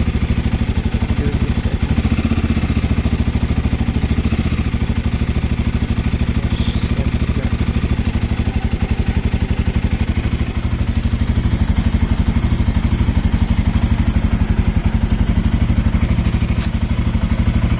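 Royal Enfield Himalayan 450's single-cylinder engine running steadily with an even, rapid pulse. It gets a little louder about eleven seconds in.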